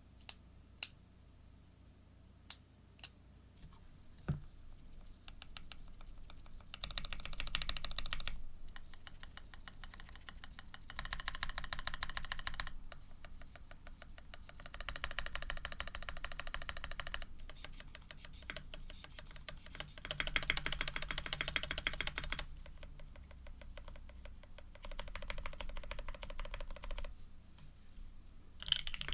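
F1-8K custom mechanical keyboard with lubed OP-Black switches, an FR4 plate and PBT keycaps being typed on. A few single key presses and a low thump come first, then fast typing in bursts of about two seconds with short pauses between them.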